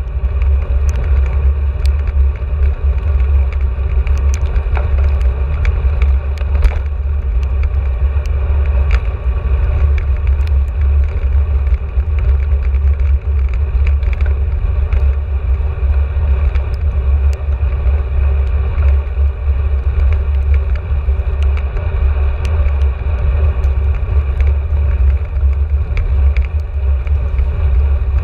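Steady wind rumble on a bike-mounted camera's microphone while cycling on the road, with a haze of tyre and road noise and scattered faint ticks.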